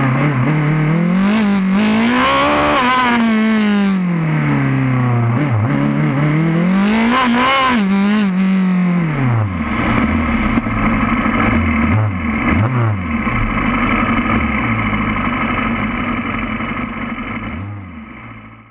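Single-seater formula race car's engine heard from the cockpit, revving up and falling back twice through the slalom in the first nine seconds. Then it drops to a low, uneven rumble off the throttle with a couple of brief blips, and the sound fades out near the end.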